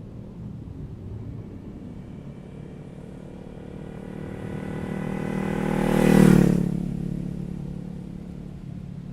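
Honda CBR500R's parallel-twin engine, through a Leo Vince GP Corsa exhaust with its dB killer removed, passing by: it grows louder as it approaches, peaks about six seconds in, and fades as it goes away.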